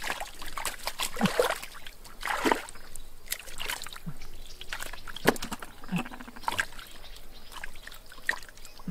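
Hands groping and sloshing through thick mud and shallow muddy water, with irregular wet splats and splashes.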